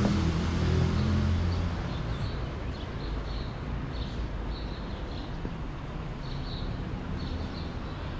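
City street ambience: a passing vehicle's low rumble fades away over the first two seconds. Small birds then chirp over and over above a steady background hum.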